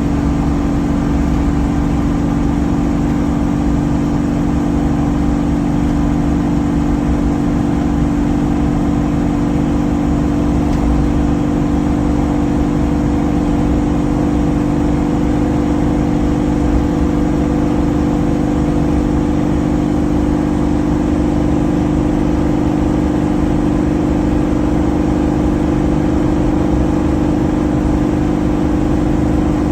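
Cabin noise inside a 2014 Winnebago Sunstar motorhome driving on the highway: a steady engine drone with a constant low hum over road rumble, at an unchanging pitch.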